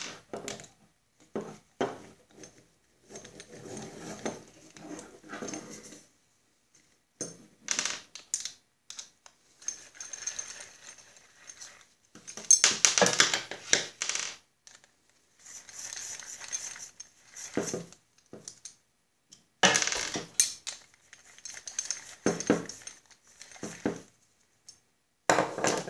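Intermittent metallic clinking and rattling as nuts are spun off the hub of a walk-behind mower's drive (clutch) disc with a socket on a nut driver handle, with small steel parts and tools handled in between. The louder clusters of clatter come about halfway through and again a few seconds later.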